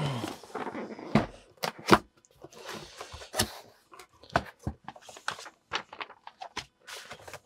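Cardboard box being opened by hand, with its flaps pulled back and paper instruction sheets lifted out: irregular rustling with sharp knocks and clicks.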